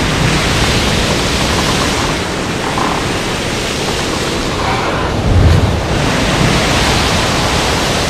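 Loud, steady rushing hiss, like wind blowing on a microphone, swelling and easing slowly, with a low rumbling surge about five and a half seconds in.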